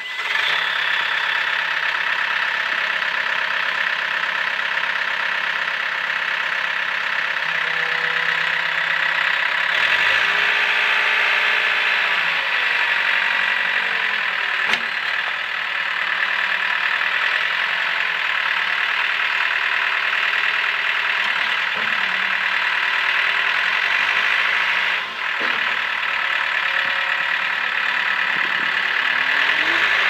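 2005 Case 440 tracked skid steer's diesel engine starting up and then running steadily. The pitch shifts now and then as the machine works its loader arms, raising and lowering the bucket.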